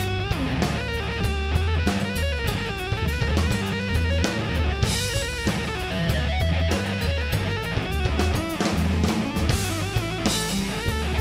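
Live rock band playing an instrumental passage: electric guitars, bass guitar and a drum kit keeping a steady beat, with cymbal crashes about five and ten seconds in.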